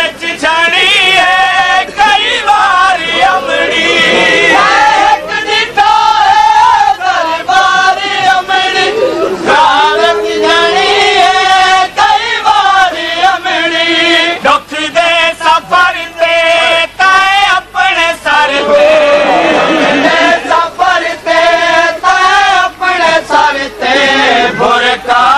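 A group of voices chanting a noha, a Shia mourning lament, together in a wavering, sustained melody.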